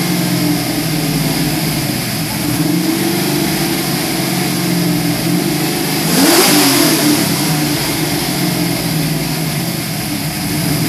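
Ford 351 SVO V8 in a 1971 Mustang Mach 1 idling on its first run, the engine speed drifting slowly up and down. About six seconds in it gets one brief rev that rises and falls straight back to idle.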